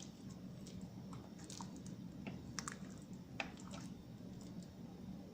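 Faint pops and crackles of chicken noodle soup boiling in an open pot, scattered irregular clicks over a steady low hum.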